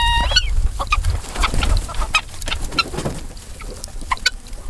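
Flock of chickens clucking: one drawn-out call right at the start that rises at its end, then many short clucks scattered through, with a low rumble underneath.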